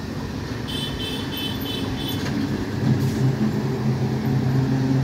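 Electric multiple unit local train rolling past at close range, its wheels running over the rails in a steady rumble. A brief high pulsing squeal comes about a second in. From about three seconds in, a steady low hum grows louder as the powered coach draws near.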